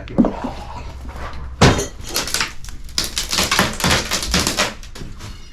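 A sharp knock, then a louder bang about a second and a half in, followed by a few seconds of dense rattling and clattering of hard objects being knocked about and moved.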